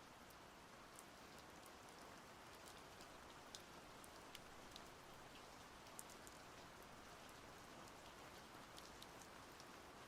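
Faint, steady splashing of water with many small scattered drips.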